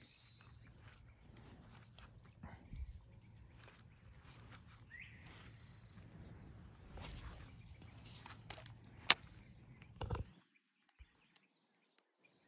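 Faint handling noise while a fishing rig is reworked: small rustles and clicks, one sharp click about nine seconds in and a dull knock a second later. A short, faint high chirp recurs every second or two.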